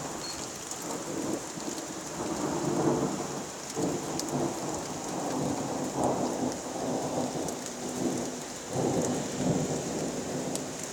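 Thunder rumbling in long rolling swells, several times over, above a steady hiss of rain.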